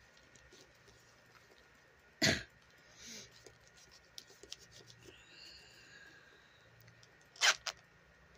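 A person coughing twice, one short cough about two seconds in and another about five seconds later, with faint clicks in between.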